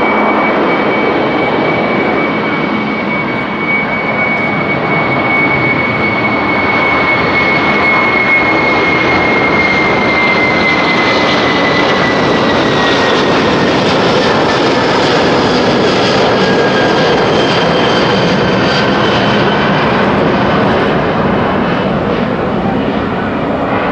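Airbus A330-300's twin GE CF6-80E1 turbofans at takeoff power, a loud steady jet roar. A high whine rides on top and slides gently down in pitch midway through as the airliner moves past.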